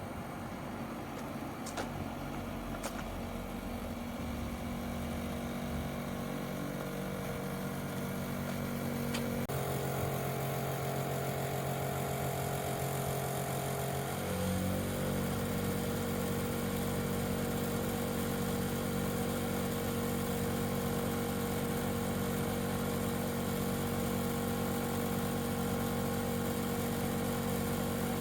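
Daikin air conditioner outdoor unit running with a loud abnormal noise: a droning hum of several steady tones. Its pitch steps abruptly about a third of the way in and again about halfway through, and the sound grows louder each time.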